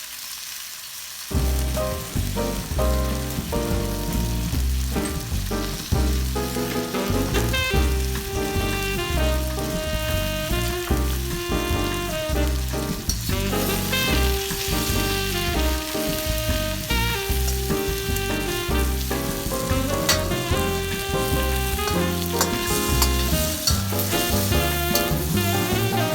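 Food frying and sizzling in a pan, under background instrumental music with a steady beat. The music drops away briefly about a second in, then carries on.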